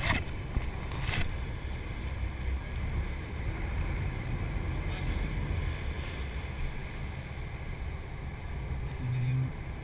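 Steady wind on the microphone over the low rumble of a sportfishing boat's engine, with a brief low hum near the end.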